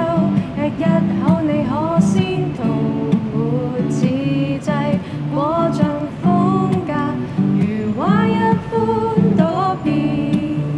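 Two acoustic guitars playing a song, with a woman singing the melody over them.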